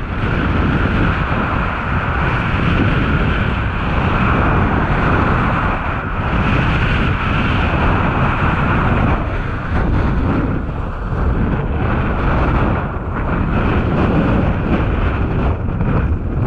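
Rushing wind buffeting the camera microphone of a downhill skier at speed, with ski edges scraping over packed, tracked-out snow.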